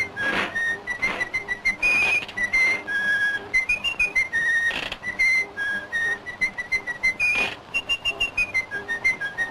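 A whistled tune: a string of short notes hopping up and down in a simple melody, with a few sharp accents along the way.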